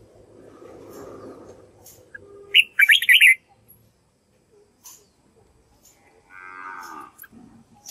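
Caged red-whiskered bulbul singing: a short, loud burst of bright notes about three seconds in, and a buzzy call near the end. A low, drawn-out sound sits under the first two seconds.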